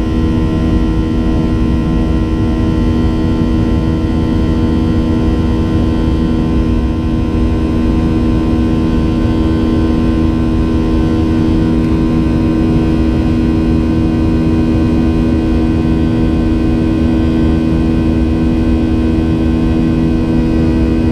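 Boeing 737-800 cabin noise in the climb after takeoff: the steady drone of its CFM56-7B turbofan engines, with several held tones over a low rushing rumble, heard from inside the cabin.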